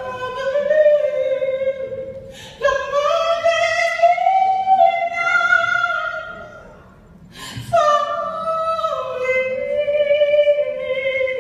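A woman singing a gospel song solo and unaccompanied, holding long notes in three phrases with short breaks for breath.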